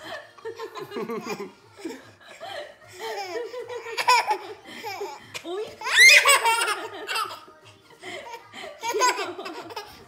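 A toddler laughing hard in repeated peals, with a loud, high-pitched shriek of laughter about six seconds in.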